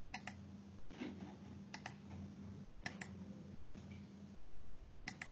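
Clicks at a computer, coming in quick pairs four times, over a low steady hum that cuts in and out.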